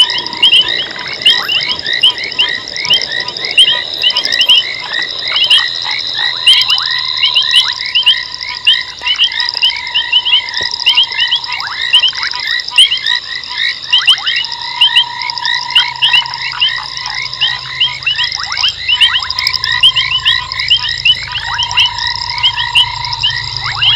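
A chorus of many frogs calling together at a waterhole at night: dense, rapidly repeated high chirps over a steady high whine, with a lower steady note that comes and goes in stretches of a second or two.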